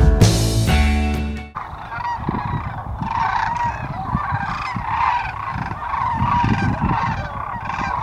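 Rock music that cuts off about a second and a half in, then a large flock of sandhill cranes and Canada geese calling in a dense, continuous chorus, with a low rumble of wind on the microphone.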